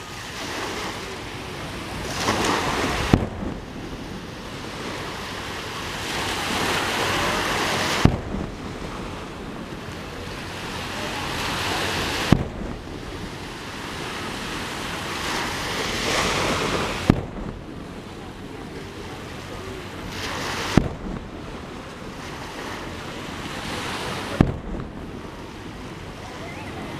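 Sea waves washing onto the shore in slow swells, with about six sharp booms from fireworks shells bursting over the water, spaced a few seconds apart.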